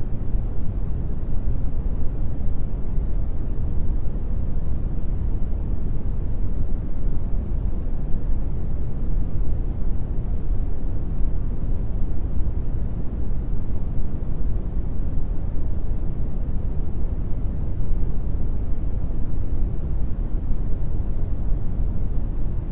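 Steady brown noise: an even, deep hiss, strongest in the bass and fading toward the treble, unchanging throughout.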